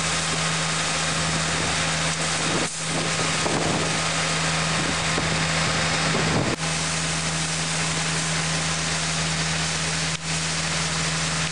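Sewer vacuum truck's engine running steadily with a constant low hum while its debris tank is raised for dumping, with wind noise on the microphone. The sound breaks off briefly three times where the footage is cut.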